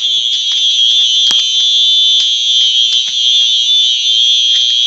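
Home smoke alarm set off in a test, its horn sounding a loud, steady, high-pitched tone without a break.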